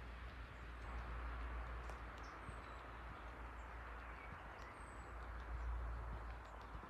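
Woodland ambience: a steady low rumble and an even rustling hiss, with a few faint, short, high bird chirps and scattered soft clicks.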